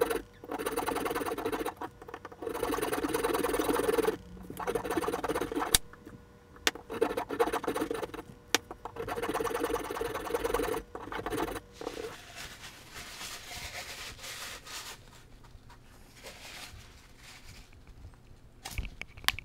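Hacksaw cutting through the aluminium can of a large electrolytic capacitor, a rasping back-and-forth in several bouts with short pauses, stopping about twelve seconds in. After that come quieter scrapes and a knock near the end as the sawn-off base comes free.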